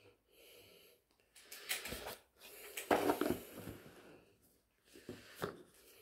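A cardboard phone box and a crumpled wad of paper being handled: irregular rustling and scraping in three short bursts, about a second and a half in, around three seconds, and near five seconds.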